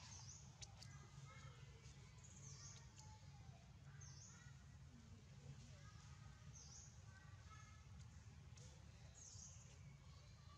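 Faint outdoor ambience: a steady low rumble, with a bird giving a short high call about every two seconds.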